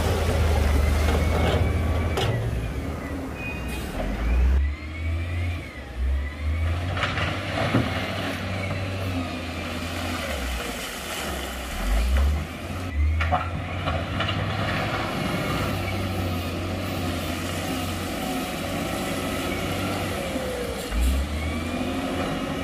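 Heavy earthmoving machinery at work: a deep diesel engine rumble that rises and falls as the engines rev, with a few sharp knocks or clanks.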